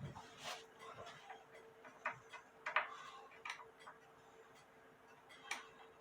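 Faint, scattered clicks and light knocks from hands working on an antique cuckoo clock's case and works as the bellows are taken out, at uneven intervals over a faint steady hum.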